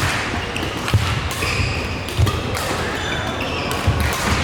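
Sounds of play on an indoor court: shoes squeaking on the floor, with three sharp thumps or hits a second or two apart, echoing in a large hall.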